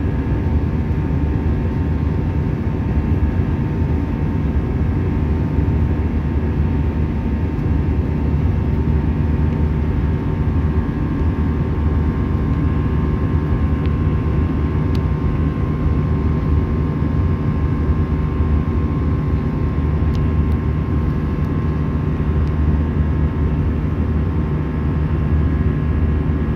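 Steady drone of an Airbus A320's jet engines and airflow, heard inside the passenger cabin. It is a deep, even rumble with a faint steady whine laid over it.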